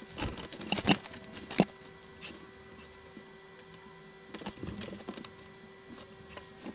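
A pen drawing lines on paper: a few knocks as it is handled in the first two seconds, then a run of short scratchy strokes about four to five seconds in, over a faint steady hum.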